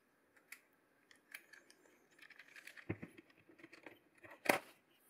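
Faint, scattered clicks and taps of a precision screwdriver and a small T6 Torx screw against the plastic handle of a Dyson hair dryer as the screw is fitted, with two louder knocks about three and four and a half seconds in.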